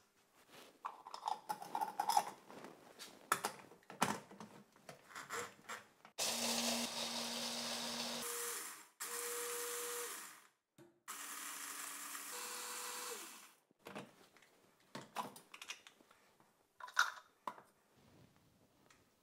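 Electric hand-blender mini chopper grinding whole peppercorns and coriander seeds, run in three bursts of about two seconds each starting about six seconds in. Scattered clicks and clinks of the spoon and plastic parts come before and after.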